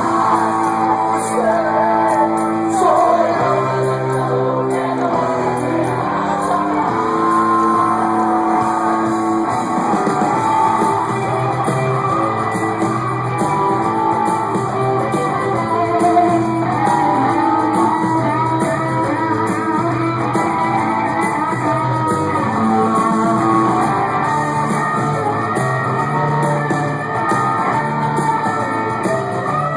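Live rock band performing in a large hall, with electric and acoustic guitars, drums and percussion under a sung vocal line, recorded from the audience.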